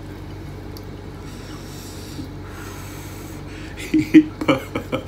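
A person eating close to the microphone: a faint breathy hiss, then a quick run of loud, short mouth smacks and clicks about four seconds in, over a steady low hum.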